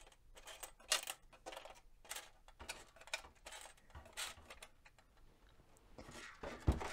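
Scattered light clicks of metal screws knocking against the plastic bars of a 3D-printed screw sieve as fingers push long screws through, with a dull knock near the end.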